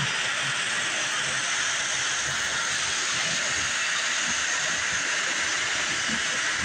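Toy electric trains running on tinplate track: a steady hiss of wheels and motors rolling over the metal rails.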